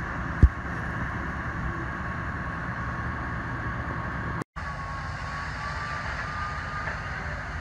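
Steady rumble of fire trucks' diesel engines running. A single sharp knock comes about half a second in, and after a cut a faint high steady tone sounds for a couple of seconds.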